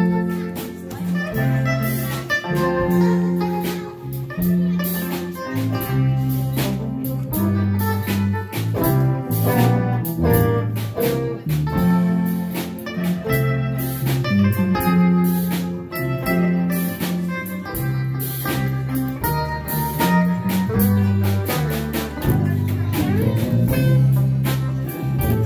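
Electric guitars playing an instrumental tune through amplifiers: plucked lead notes over a steady, moving bass line.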